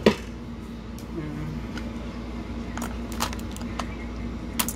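Small plastic clicks and taps of electronics-kit parts being handled in a clear plastic compartment box: a sharp click at the start, then scattered light taps, over a steady low hum.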